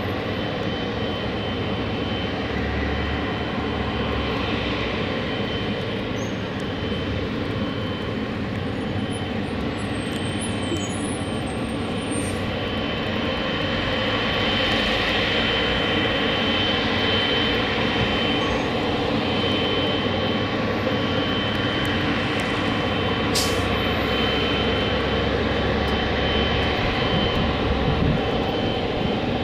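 A Boeing 777-300ER's two GE90-115B turbofan engines run at taxi power: a steady jet whine with a high tone over a broad rush. The sound grows a little louder about halfway through as the airliner taxis closer.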